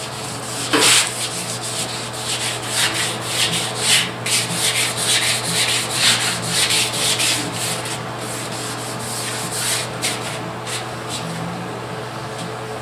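Hand wet sanding with 600-grit water paper on a block over fresh gloss white enamel: quick, irregular back-and-forth rasping strokes that thin out near the end. This is color sanding to knock down orange peel in the new paint.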